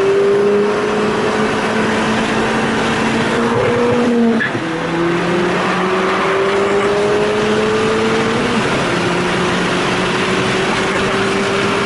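Ford Fiesta's engine accelerating hard through the gears, its pitch climbing steadily and dropping at two upshifts, about four seconds in and again past eight seconds. There is steady road and wind noise under the engine.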